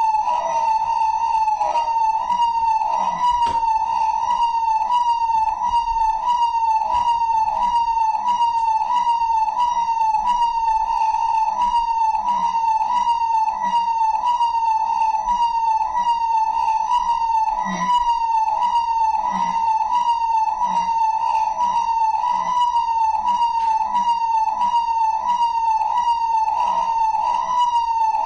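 A siren warbling, its pitch rising and falling over and over in a steady repeating cycle.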